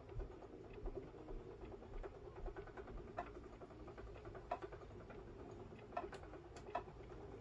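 Wooden treadle spinning wheel turning as it is treadled: a faint steady whir with soft, irregular ticks and low knocks from the wheel and flyer.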